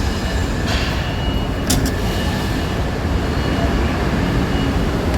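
Steady rumble of a moving train with a few faint clicks.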